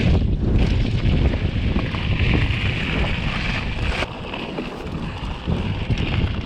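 Wind buffeting the microphone of a mountain bike descending a trail at speed. Under it are the rumble of the tyres and scattered knocks from the bike over the ground.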